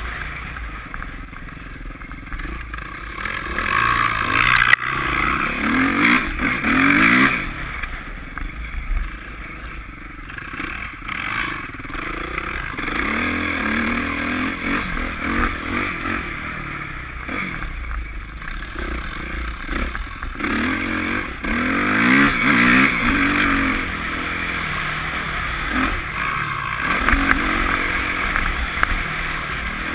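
Dirt bike engine under way, heard from on the bike itself, climbing in pitch and dropping back again several times as it accelerates through the gears, with wind rushing over the microphone.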